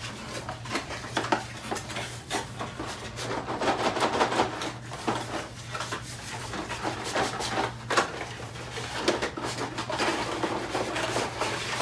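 Cardboard packaging being handled: long white cardboard pieces sliding and scraping out of a shipping carton, with rustling and light knocks throughout. A steady low hum runs underneath.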